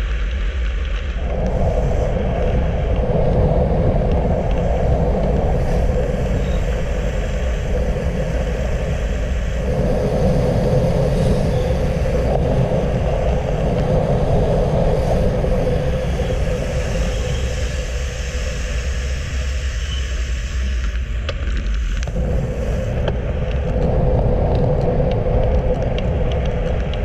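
Wind rushing over the microphone of a road bike moving at speed, with tyre noise on asphalt. A steady hum rises and falls, dropping back for a moment about ten seconds in and again for several seconds later on.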